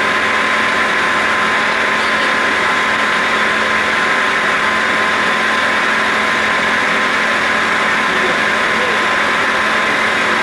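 CNC roll turning lathe cutting a metal roll, the tool insert peeling off curled, heat-blued chips: a steady machining noise with a constant high tone and a lower hum through it.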